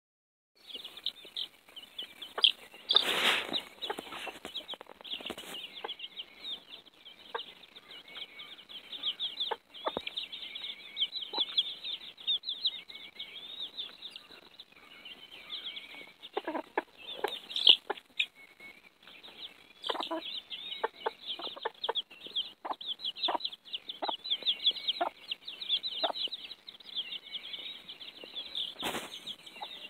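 A brood of young chicks peeping continuously, many short high cheeps overlapping, with scattered knocks and a louder rustle about three seconds in.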